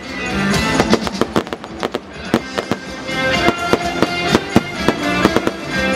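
Fireworks going off in a rapid series of sharp bangs and crackles, with music playing underneath.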